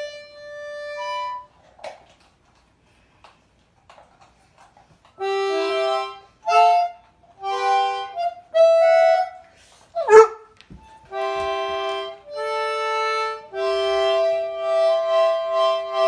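Concertina playing held, reedy notes and chords in short phrases, with a few seconds of silence after the first note. One brief sharp sound about ten seconds in is the loudest moment.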